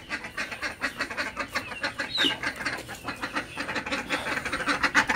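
Ducks quacking in a fast, continuous chatter of short calls, with a brief high chirp from another bird about two seconds in.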